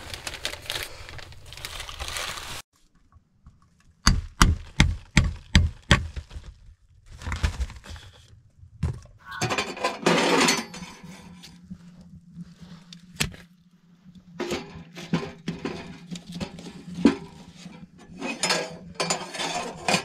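Dried chaga fungus being chopped into small pieces, a run of sharp cracking knocks that starts about four seconds in, then scattered strikes. A steady low hum runs under the second half.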